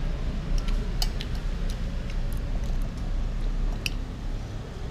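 Eating sounds: a spoon clicking against a glass plate a few separate times, the sharpest click near the end, over a low steady hum.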